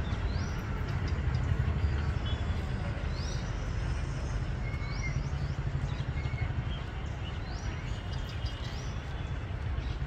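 A steady low rumble, with a bird repeating a short rising chirp every second or so.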